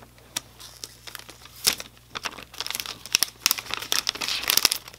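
Clear plastic shrink-wrap being peeled and torn off an iPhone XS Max box, crinkling and crackling in quick, irregular snaps that come thickest in the middle seconds.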